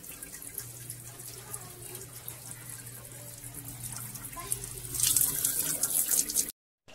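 Wet freshwater snail shells clicking and rattling against each other as a hand stirs and scoops them in a metal basin. The rattling grows louder near the end, then cuts off suddenly. A low steady hum sits underneath for most of it.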